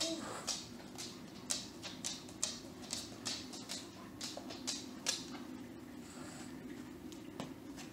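A large dog close by panting in short breaths, about two a second, tapering off about five seconds in. Under it runs a steady low hum.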